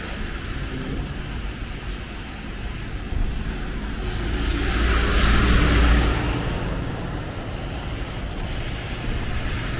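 Road traffic on a wet road: tyres hissing and an engine rumbling, swelling as a vehicle passes about five seconds in, then fading.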